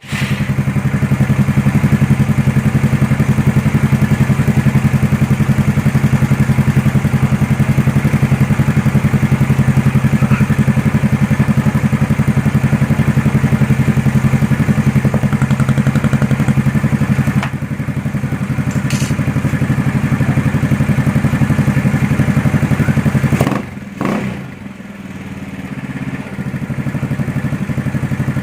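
Yamaha Mio Sporty scooter's single-cylinder four-stroke engine running through a Hero pipe V4 aftermarket exhaust with its silencer insert fitted, idling steadily and loudly. Near the end the pitch swings briefly and the engine settles a little quieter.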